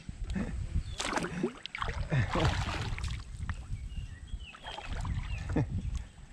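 A small hooked chucumite (little snook) splashing and thrashing at the water surface several times, over a steady low rumble on the microphone.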